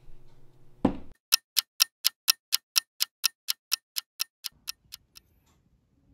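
Ticking-clock sound effect marking time passing: a brief swish about a second in, then even, sharp ticks at about four a second that fade and stop a little after five seconds.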